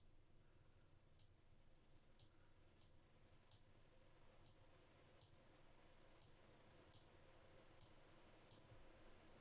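Faint computer mouse clicks, about a dozen, spaced roughly a second apart, over near-silent room tone.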